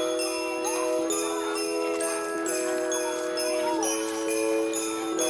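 Christmas background music led by jingling sleigh bells over sustained chords that change about every second and a half.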